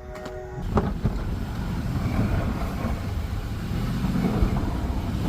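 Pickup truck with a snow plow running under load, its engine rumbling as it pushes snow and ice; the noise rises sharply just under a second in and stays loud.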